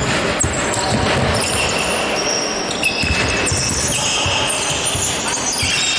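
Basketball game play in a gym: a ball bouncing on the hardwood and sneakers squeaking in many short high chirps, over the echoing noise of the hall.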